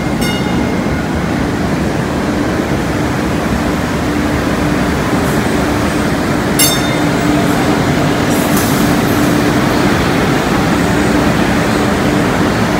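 MBTA Green Line light-rail train: a steady rumble with a low, even hum. About six and a half seconds in there is a brief metallic clink, and a short high-pitched squeal or hiss a couple of seconds later.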